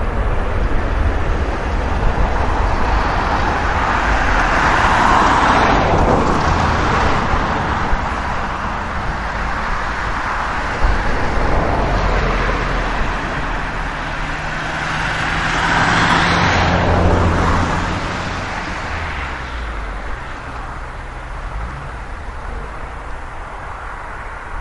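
Boeing 737-800's CFM56 jet engines running loud as the airliner rolls out along the runway after touchdown. The roar swells with a whooshing sweep about five seconds in and again around sixteen seconds, then eases off toward the end.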